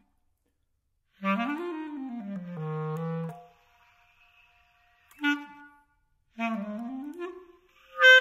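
Solo woodwind music: short phrases with sliding pitch, broken by pauses. About a second of silence first; a phrase that slides up and then steps down; a brief note around the middle; another phrase rising near the end, then a short, loud note at the very end.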